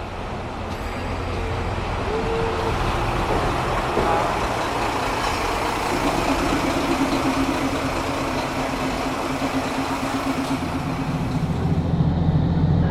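A diesel engine running, slowly growing louder, with a steady pitched drone in the middle and a deep hum coming in about a second before the end.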